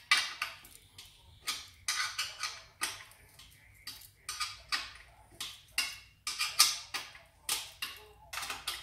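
Hand tool working bolts on a steel scooter frame: irregular metallic clicks and clinks in short bursts.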